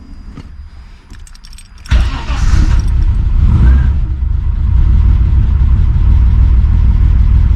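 Holden VL Turbo Commodore's RB30ET straight-six engine starting from cold about two seconds in, firing on the first try, then running steadily. It is freshly timed with a new timing belt. A few light clicks come before it starts.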